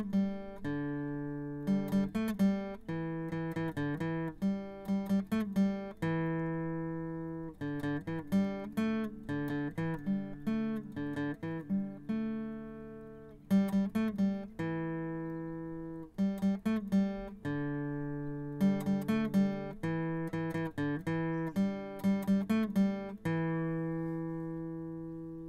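Background music: a plucked string instrument playing single notes and chords that ring out and fade, one after another at an easy pace.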